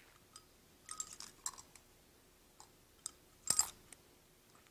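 Scattered clicks and scrapes of a rotary cable stripper being worked around a loose-tube fiber optic cable's plastic jacket to score a ring cut, with the loudest cluster of clicks a little after the midpoint.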